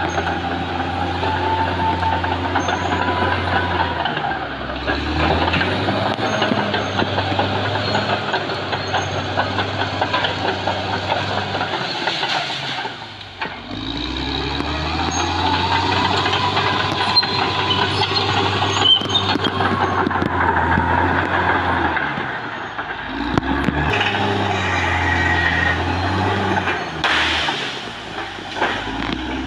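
Caterpillar D6R XL crawler bulldozer's diesel engine working under load as the dozer pushes through trees and brush. The engine note drops away briefly around the middle and again later, then picks back up.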